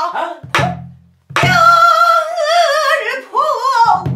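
Female pansori singer's voice with buk barrel-drum accompaniment: a drum stroke with a sharp crack about half a second in, then a long, loud sung phrase on held, wavering notes, and another low drum stroke near the end.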